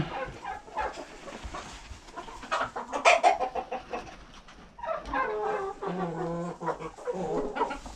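Chickens clucking in the coop: several pitched, wavering calls, with a louder spell of clucking in the second half.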